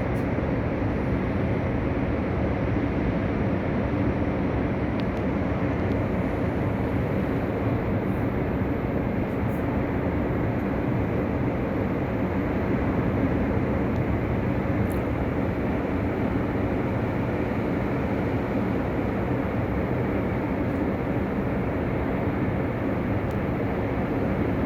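Heavy surf breaking on the East Sea coast in winter: a steady, unbroken wash of waves, deep and even.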